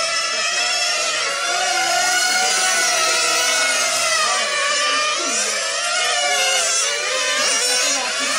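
Several 1/8-scale nitro on-road RC cars' small glow engines racing together, their high-pitched whines overlapping and rising and falling as each car revs up and lifts off.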